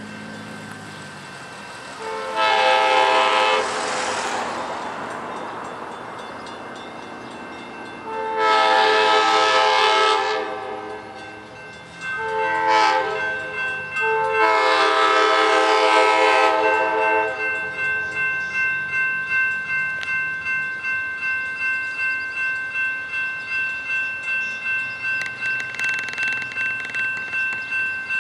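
Amtrak P42DC diesel locomotive's multi-chime air horn sounding the grade-crossing warning: two long blasts, a short one and a final long one. From about two-thirds of the way through, the crossing's warning bells ring about twice a second.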